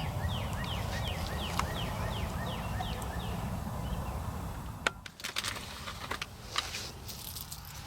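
A songbird sings a quick run of about ten down-slurred whistled notes over a steady low rumble. From about five seconds in, a scatter of sharp clicks and rustles of close handling follows.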